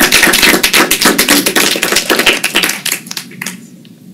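A small audience applauding: many hands clapping densely, thinning to a few last claps and stopping about three seconds in.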